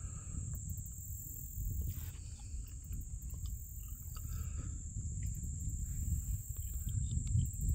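Wind buffeting the microphone in an uneven low rumble, over the steady high drone of insects.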